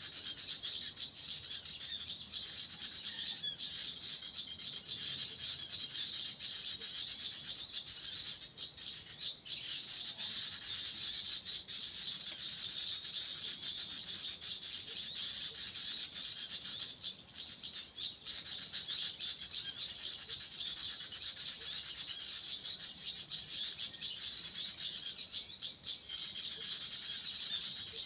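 Dense, unbroken chirping and chattering of small birds, a bird-call lure recording played from an MP3 player to draw birds to a trapping set, mixed with wild birds calling back.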